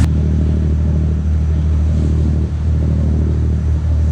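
Sportfishing boat's engine running steadily underway: a low, even drone, with a hiss of water rushing past the hull.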